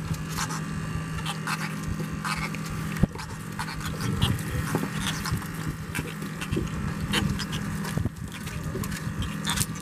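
Doradid (thorny) catfish out of water, croaking by working their pectoral fins: many short, irregular croaks overlapping throughout. There is a steady low hum underneath and a sharp knock about three seconds in.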